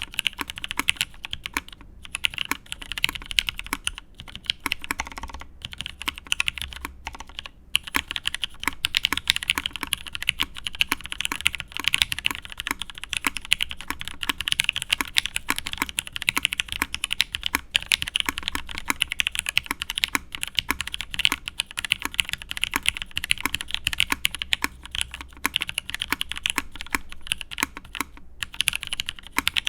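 Fast, steady typing on a mechanical keyboard: lubed Cherry Nixie linear switches in an aluminium plate, under Cherry doubleshot keycaps. The typing pauses briefly a few times.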